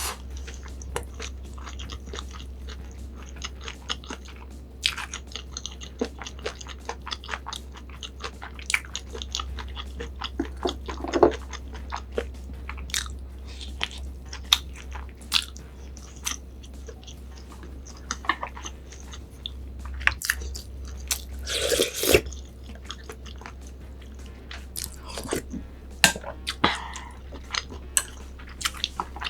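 Close-miked eating: repeated bites and chewing with crisp crunching and many small clicks, over a faint steady low hum.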